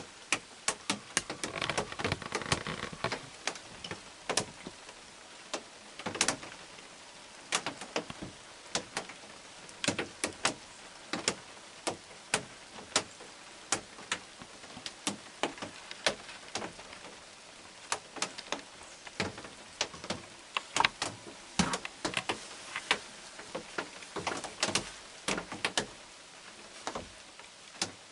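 Steady rain with loud, irregular drips ticking close by, several a second. A brief rustle about two seconds in.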